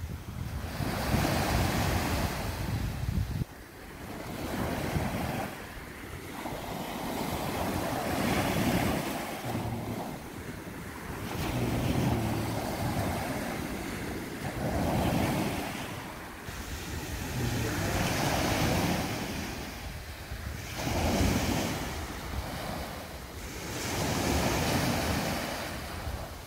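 Small surf breaking and washing up a sandy beach, the rush swelling and fading every few seconds, with wind rumbling on the microphone.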